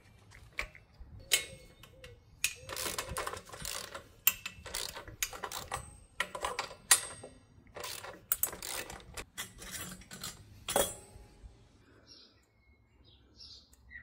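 Metal hand tools and engine parts clinking, clicking and scraping in many short, irregular knocks, typical of working on a two-stroke engine's cylinder head. It goes quiet for the last few seconds.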